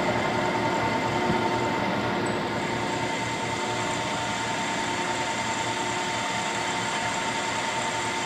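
Vertical milling machine running with an end mill taking an eighth-inch-deep cut along a quarter-inch keyway in a one-inch cold-rolled steel shaft: a steady machine hum with a constant whine.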